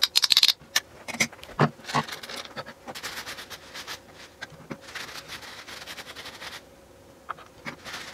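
Small metal parts clicking and clattering as they are handled and set down on a workbench, followed by a paper towel rustling and crackling as it is crumpled and rubbed over the parts for a few seconds.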